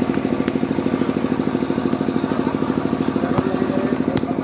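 A small engine running steadily close to the microphone, with a fast, even pulse. Two sharp knocks come near the end.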